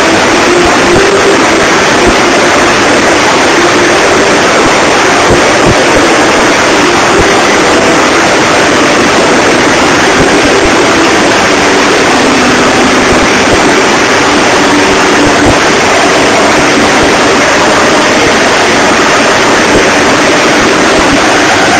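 Helicopter turbines and rotor running loud and steady as it hovers low and sets down, then keeps running on the ground with the rotors turning. Its whine drops a little in pitch about halfway through.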